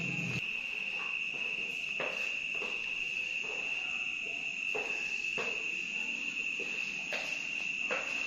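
A cricket trilling in one steady, unbroken high note, with scattered light knocks and clicks about once a second.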